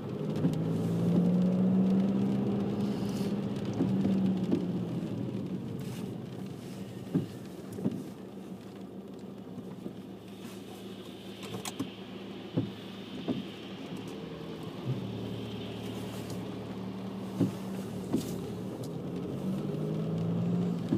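Car engine and road noise heard from inside the cabin while driving slowly on a wet road. The engine hum rises near the start and again near the end, with a few light knocks, and a higher hiss swells and fades in the middle.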